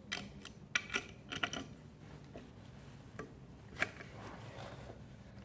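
A handful of scattered light metallic clicks and taps, irregularly spaced: a socket wrench and the rear sprocket's nuts being worked and handled as the nuts come off.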